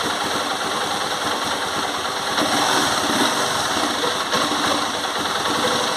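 Honda CG 150 Titan Sport's single-cylinder four-stroke engine running steadily at idle with a knocking noise that the owner calls piston noise ("canecando"), after the bike was ridden about a kilometre without oil.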